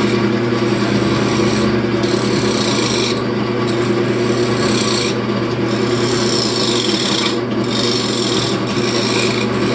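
Wood lathe running with a steady motor hum while a scraper cuts the spinning wood blank. The rasping scrape comes and goes in passes of one to two seconds as the tool is pressed in and eased off.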